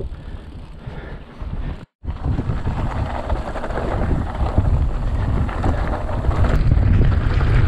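Wind buffeting the GoPro 7 Black's microphone, a dense low rumbling rush. It cuts out completely for an instant about two seconds in, then comes back louder.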